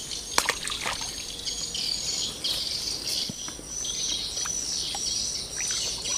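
Steady high-pitched chorus of chirping insects and birds, with a couple of sharp clicks in the first second.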